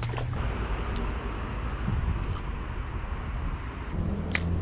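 Steady rushing background noise with a low rumble, and a motor's engine hum that comes in and grows louder near the end, typical of road traffic. A few sharp clicks sound through it.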